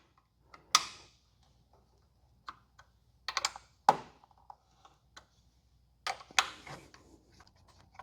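Scattered sharp metallic clicks and clinks of an 8 mm hex key being fitted and turned to remove a motorcycle engine bolt, in small clusters with the loudest about four seconds in and again past six seconds.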